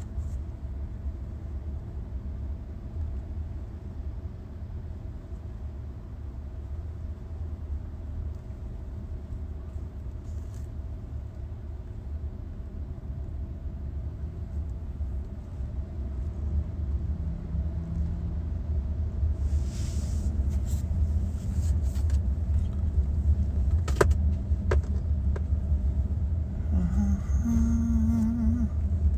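Low, steady road and engine rumble of a moving car, heard inside the cabin from the back seat. It grows louder a little past halfway, with a couple of sharp clicks about three-quarters of the way through.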